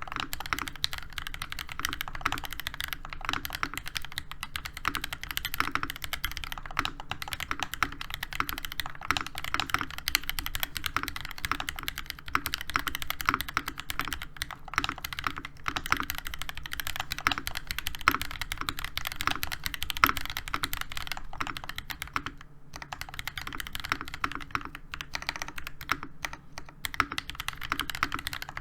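Continuous typing on a NovelKeys NK87 mechanical keyboard with hand-lubed, filmed Gateron Oil King linear switches, a brass plate and ABS Cherry-profile keycaps: a dense, steady stream of keystrokes with a brief pause about 22 seconds in.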